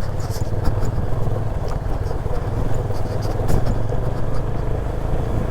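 Motorcycle engine running steadily while riding, with a steady low drone and a few faint ticks above it.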